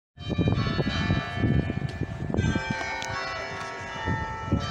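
Church bells ringing, several bells struck in turn with their tones sounding on and overlapping. The sound starts suddenly just after the beginning.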